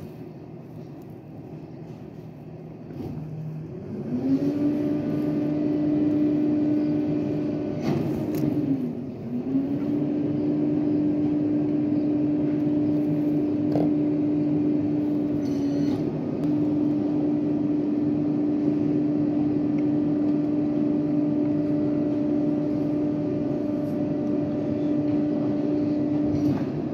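Rear-loader garbage truck (2018 International with a New Way body) revving up from idle about four seconds in and holding a steady raised-rpm hum, with a brief dip near nine seconds, while its hydraulic packer cycles. The pitch falls back as the cycle ends.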